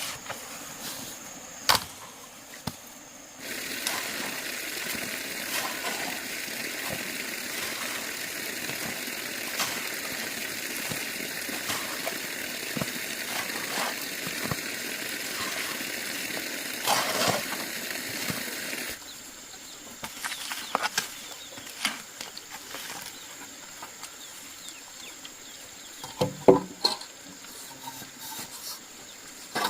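A steady rushing noise like running water starts a few seconds in and cuts off abruptly about fifteen seconds later. Scattered light knocks and clicks come before and after it, with a short cluster of louder knocks near the end.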